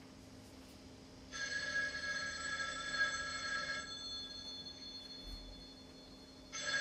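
Telephone ringing: one ring of about two and a half seconds, a pause, then a second ring starting near the end.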